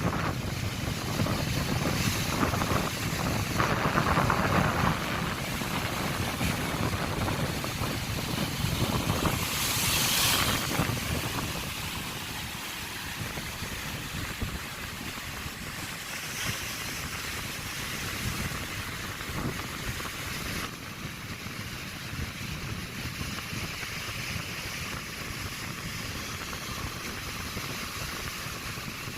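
Sea surf washing on a beach, with wind rumbling on the phone's microphone, louder in the first part and with one sharper splash of surf about ten seconds in.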